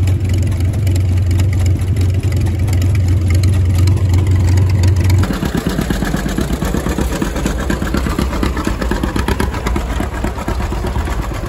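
Tractor engine running with a steady low drone. About five seconds in, it switches abruptly to a rougher, rattling engine sound.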